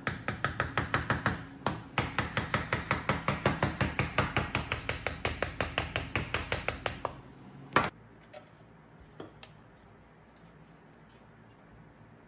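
Small hammer tapping quickly and lightly on a wooden disc fitted into a license-plate sleeve, several even taps a second. There is a brief pause, then a longer run of taps. A single harder knock follows, and then only faint clicks.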